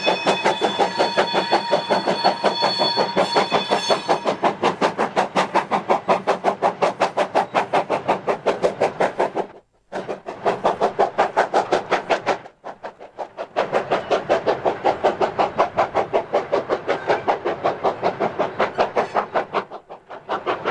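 Industrial saddle tank steam locomotive pulling a train of wagons, its exhaust beating rapidly and evenly, about six beats a second. A faint high steady tone sounds over the first few seconds. The beats cut out briefly twice near the middle, then carry on.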